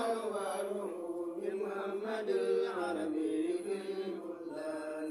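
A man chanting an Islamic devotional recitation in a melodic, drawn-out voice, holding long wavering notes without a break.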